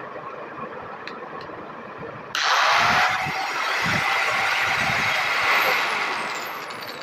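Angle grinder switched on about two seconds in, its motor spinning up with a sudden loud rush and running at speed, fading near the end. A test run after fitting new carbon brushes.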